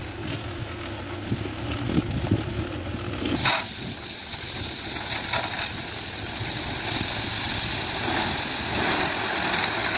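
Mahindra tractor's diesel engine running while it tips a trolley of crushed stone. About three and a half seconds in the sound changes sharply, and a steady hiss of gravel sliding out of the raised trolley takes over.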